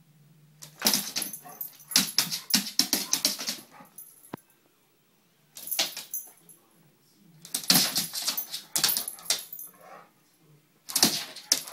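A medium-sized dog barking at a moth in four quick bouts of sharp barks, with short pauses between.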